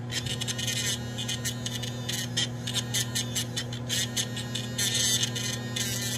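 Pen-style electric nail drill running with a steady hum while its bit scrapes against an acrylic nail in short, irregular rasping strokes, filing the acrylic down.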